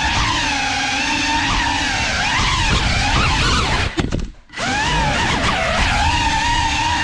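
Brushless motors and propellers of a GEPRC Cinelog 35 cinewhoop FPV drone whining, the pitch wavering up and down with the throttle, over a rushing prop-wash noise. The sound drops out briefly about four seconds in, then picks up again.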